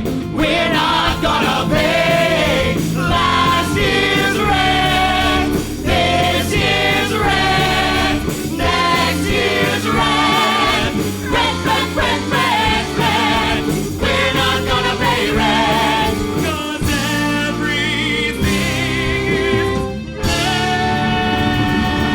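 A rock-musical number performed live: several voices singing together in full voice over a band. Near the end the music breaks off briefly, then comes back on a long held chord.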